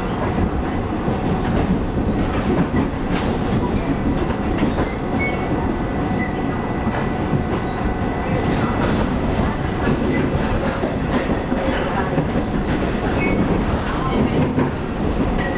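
Running noise of a Taiwan Railways local train heard from inside the carriage: a steady rumble with wheel clicks over the rail joints, and a faint steady whine over it.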